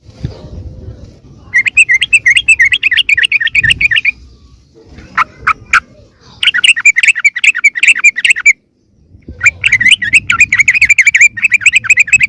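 Yellow-vented bulbul (trucukan) giving its noisy, agitated chattering call, the kind used to lure wild bulbuls in. It comes as three runs of rapid repeated notes, each about two seconds long, with a few separate short notes between the first two runs.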